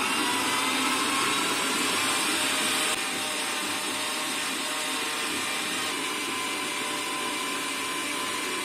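Electric blender motor running steadily, whirling mango pulp, milk and sugar into a smooth milkshake-like liquid. The sound drops slightly about three seconds in and stops abruptly at the end.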